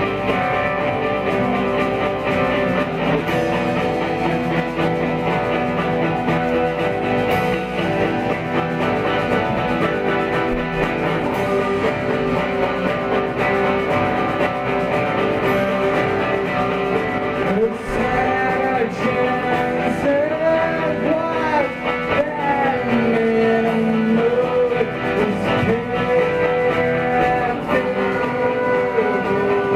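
Live rock band playing: electric guitars, drums and keyboard, with a singing voice coming in about two-thirds of the way through.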